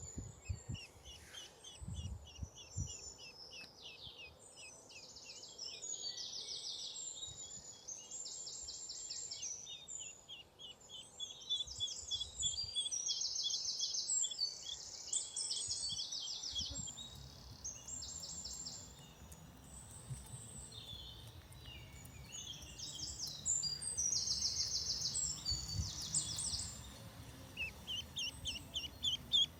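Birds chirping: strings of short high peeps and fast trilled phrases, repeated throughout.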